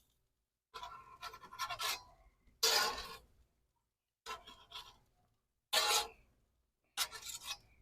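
Metal grilling utensil scraping and clinking against the grill grate as burgers are moved, in five short strokes with pauses between.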